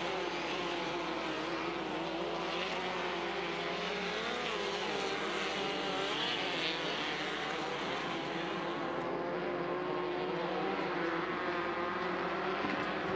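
Off-road racing buggy engines running hard around a dirt track, a continuous drone whose pitch rises and falls as the throttle is worked through the turns and jumps.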